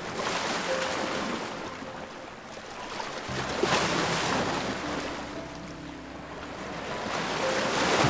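Small surf breaking on the shore, its wash rising and falling about every three to four seconds, with soft background music of held notes underneath.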